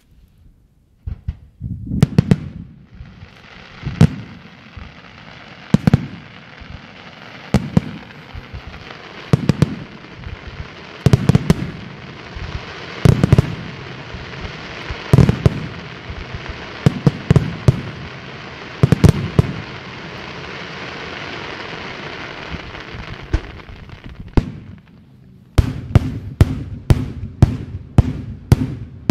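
Daytime fireworks: shells bursting with sharp bangs about every two seconds over a steady hiss. From about 25 seconds in comes a quicker run of bangs, several a second.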